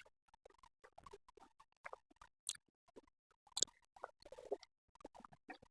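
Faint, scattered wet clicks and smacks of momos being chewed and eaten, with short silent gaps between them.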